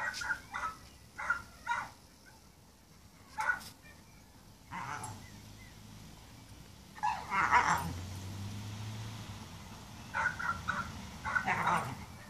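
German shorthaired pointer giving short, high yelps and barks in quick clusters, with a longer, louder outburst about seven seconds in.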